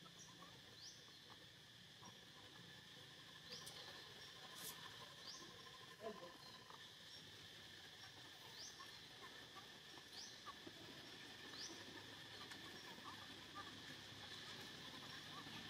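Faint outdoor ambience: a steady high-pitched insect drone, with short rising chirps recurring every second or so.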